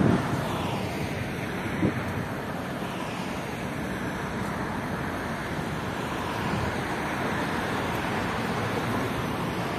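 Steady city traffic noise mixed with wind on the microphone, with a brief knock about two seconds in.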